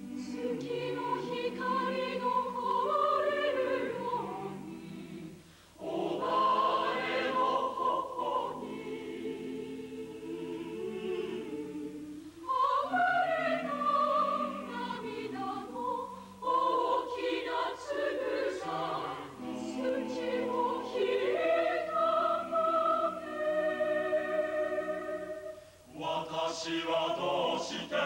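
Mixed choir of high-school voices singing unaccompanied, in long sustained phrases with brief breaks between them about 6, 12, 16 and 26 seconds in.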